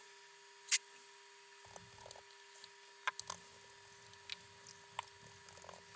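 Light clicks and handling noises of small laptop parts, with one sharp click about three-quarters of a second in, over a faint steady hum.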